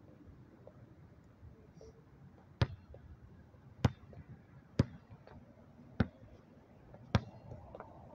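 Basketball bouncing on the court in a slow dribble: five sharp bounces a little over a second apart.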